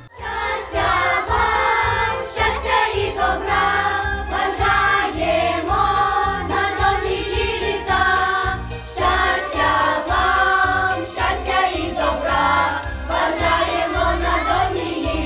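A children's choir singing a Ukrainian folk song together, over an instrumental backing track with a steady low beat.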